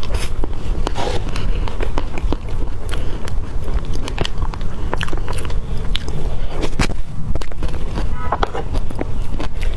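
Close-miked wet chewing and sticky mouth clicks from eating soft cream cake, with a spoon scooping into the cake partway through.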